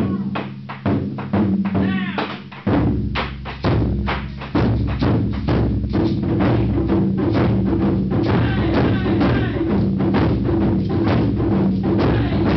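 Large taiko drum (odaiko) struck hard with wooden sticks, each blow ringing low and deep. Separate strokes at first, then about five seconds in the playing turns into a fast, unbroken roll of strokes.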